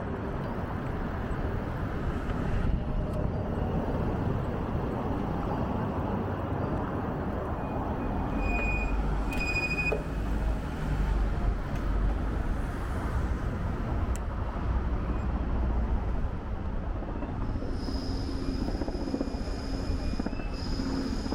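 Busy city street traffic heard from a bicycle: a steady wash of vehicle engine and tyre noise. A deeper rumble swells in the middle, with two short high squeaks about nine and ten seconds in, and a thin high whine holds over the last few seconds.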